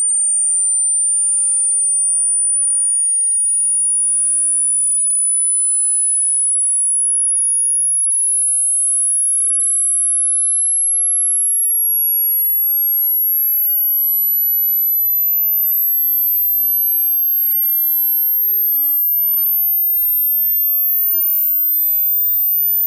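Pure sine test tone of a hearing-test frequency sweep: a single very high, thin whistle that climbs slowly in small even steps, at a steady loudness.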